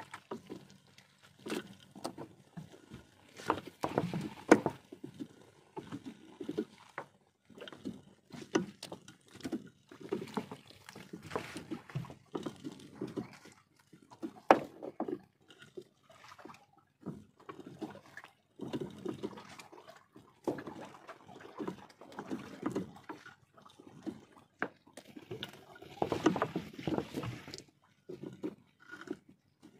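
Wet fishing net being hauled in by hand over the side of a wooden boat: irregular rustling, dripping and splashing, with sharp knocks against the hull.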